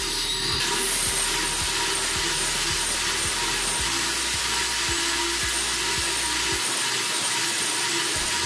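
Handheld electric power tool running steadily as it cuts into the wooden edge of a door, recessing it for a hinge.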